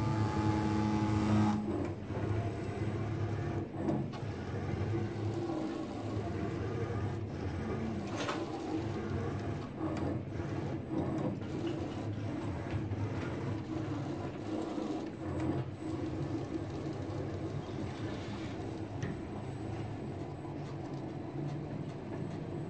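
CNC router's axis motors and ball screws running as the gantry moves a pen over the board. A steady pitched hum for about the first second and a half, then a rougher running sound that keeps changing as the axes trace curves.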